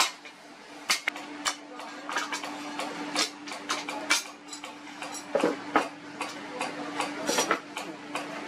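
Hand hammer tapping a steel cleaver blade forged from leaf spring against a round steel stake anvil: quick, irregular metallic taps, about three a second, with a steady low hum underneath.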